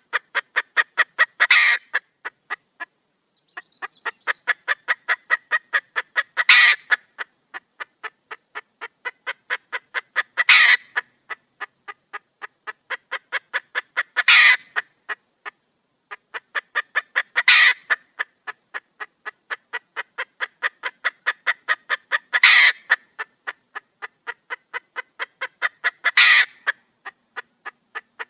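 Red junglefowl hen calling for a mate: a fast, even run of short clucks, about four or five a second, that builds to a louder squawk roughly every four seconds, over and over.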